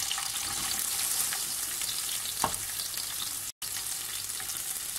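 Sliced onion sizzling in hot mustard oil, a steady crackling hiss. There is one sharp knock about halfway through, and the sound cuts out for an instant a little later.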